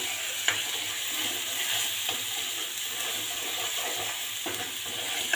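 Tomato and spice masala sizzling in hot oil in a pan, a steady hiss with a few light clicks of a spoon against the pan.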